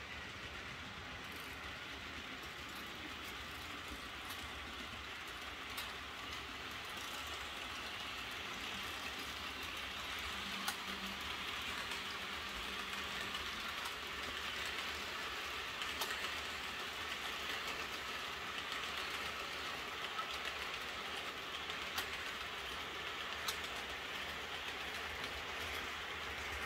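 Model passenger train running on a model railway layout: a steady rolling rattle of small wheels on the track, with a few sharp single clicks along the way.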